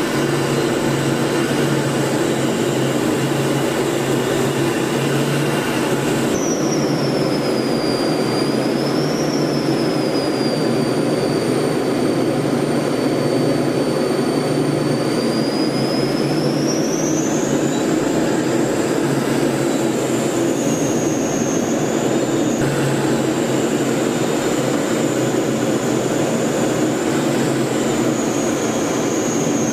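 Aircraft noise heard from inside a military trainer in flight: a steady drone of engine and rushing air, with a high whine that slides up and down in pitch. The sound changes abruptly twice, where shots are cut together.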